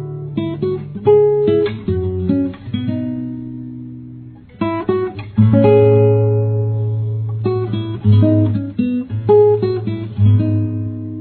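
Acoustic guitar playing, with strummed chords and picked notes. A chord rings out and fades before the playing picks up again about four and a half seconds in.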